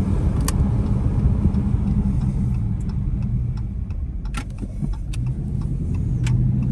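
Dodge Charger Hemi V8 engine and road noise heard from inside the cabin while driving with the throttle pressed. The rumble eases off slightly about four seconds in, and a few sharp ticks sound over it.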